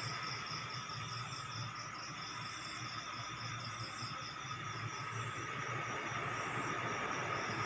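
Crickets chirping at night in a steady pulsing trill, about four pulses a second, over a low steady background hum.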